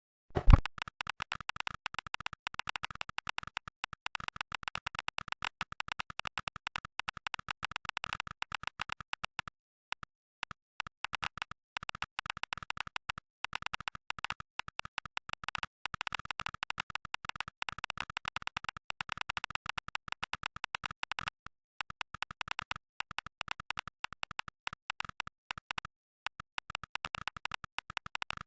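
Fast typing on a mechanical keyboard with Gateron Black Ink linear switches, reproduced by the Mechvibes sound pack: rapid clacking keystrokes in long runs with a few short pauses. One louder thump about half a second in.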